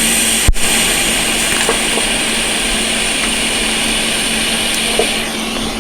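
TIG welding arc tacking a tone ring (reluctor wheel) onto a crankshaft: a steady hissing buzz that starts at once, with a sharp click about half a second in, and cuts off shortly before the end.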